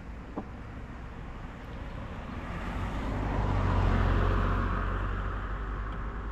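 A car passing close by, its road noise swelling to a peak about four seconds in and then fading, over a steady low engine rumble.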